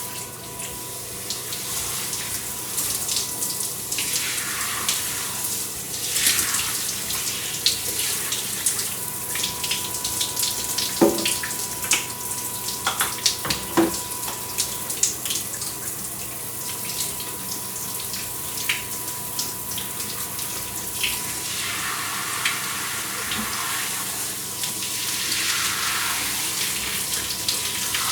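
Electric shower running, its spray hissing steadily and splashing unevenly as someone showers under it. A faint steady hum sits underneath.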